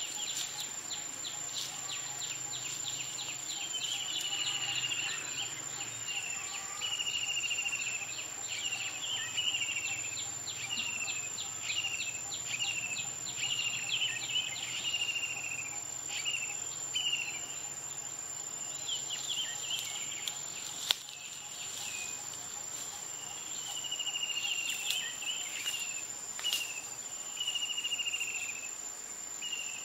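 Forest insects: a steady high whine with a long run of short chirps over it, about one or two a second. A few sharp clicks and one louder tap come about two-thirds of the way through.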